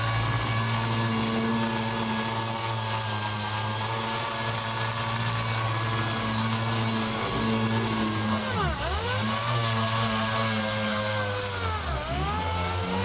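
Air-powered random orbital sander running steadily while dry-sanding body filler on a car door; twice in the second half its pitch dips sharply and climbs back.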